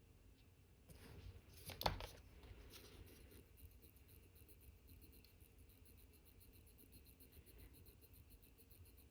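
A sharp tool click on the workbench about two seconds in, then the faint, fast, even ticking of an Omega Cal.1109 watch movement running on the bench.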